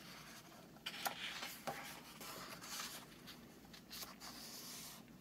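Faint paper rustling and rubbing of a picture-book page being turned, in several soft strokes over the first few seconds.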